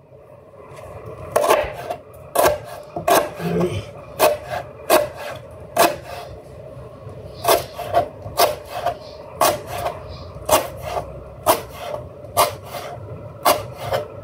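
Kitchen knife slicing a fresh lemongrass stalk into thin rings on a plastic cutting board: a crisp cut and knock of the blade on the board about twice a second, starting about a second in, with a short pause midway.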